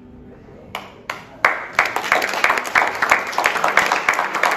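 A small group of people applauding: a couple of lone claps, then steady clapping from about a second and a half in.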